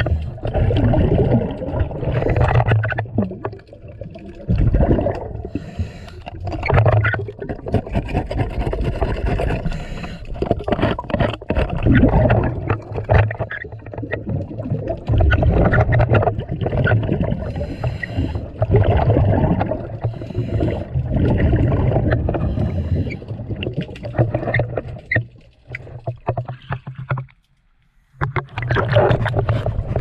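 Scuba diver breathing through a regulator underwater: bursts of exhaust bubbles rumbling out every few seconds, with hissing and sharp clicks between them. The sound drops out almost completely for a moment near the end.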